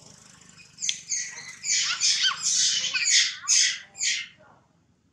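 A macaque screaming: a quick run of about eight shrill, harsh squeals that starts about a second in and stops a little after four seconds.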